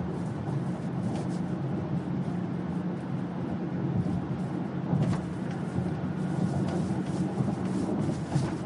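Car cabin noise while driving: a steady low engine hum with road and tyre noise.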